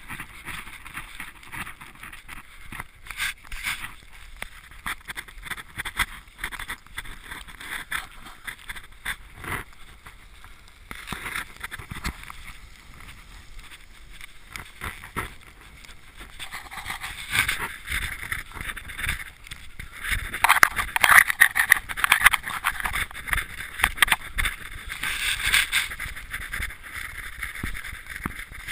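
Footsteps crunching through fresh snow, with rustling close to the microphone, as irregular crackly crunches that grow louder and denser about halfway through.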